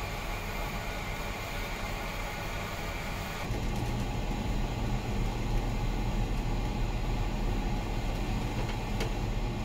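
Steady low drone of a ferry's engines heard from inside the ship, a little louder and deeper from about three and a half seconds in. One faint click near the end.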